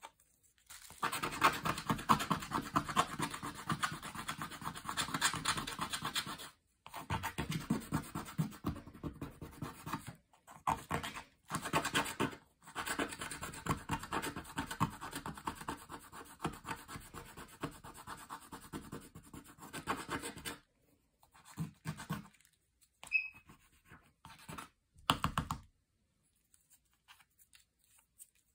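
A handheld scratcher is rubbed rapidly back and forth over a scratch-off picture page, scraping away the coating in long runs of quick strokes with brief pauses. The scraping then thins to a few scattered strokes and stops near the end.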